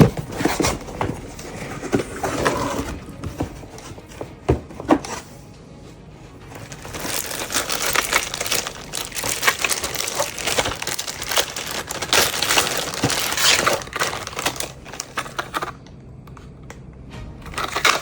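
Packaging being handled and opened: crinkling, rustling wrapping with scattered knocks at first, then a long stretch of dense crackling that stops suddenly near the end, over background music.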